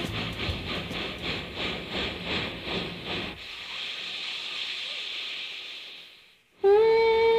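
Soundtrack music: one piece ends in a hissing wash, with a beat that stops partway through and a hiss that fades out. After a brief gap near the end, the next piece starts with a held note.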